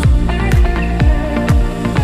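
Background electronic dance music with a steady kick-drum beat, about two beats a second, over held synth tones.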